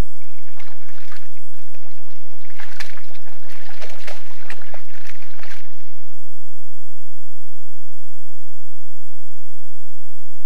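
Wild boar rooting and slurping in wet swamp mud: a quick run of squelches and small splashes that stops abruptly about six seconds in. After that only a faint, steady background hiss.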